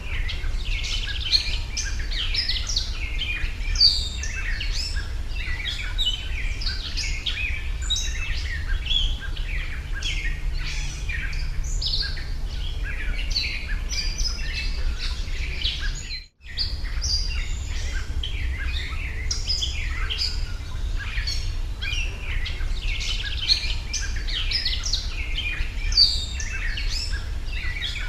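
Many small birds chirping and singing at once in a dense, continuous chorus, over a steady low rumble. The sound drops out briefly about sixteen seconds in.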